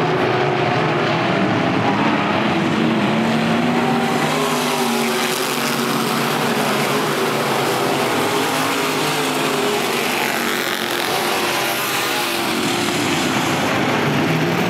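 A pack of dirt-track race cars running together, several engines at high revs blending into a loud, continuous roar whose pitches waver up and down as the cars go through the turns.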